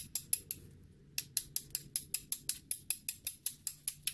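A hand tool clicking rapidly and evenly, about six sharp clicks a second, pausing briefly about half a second in.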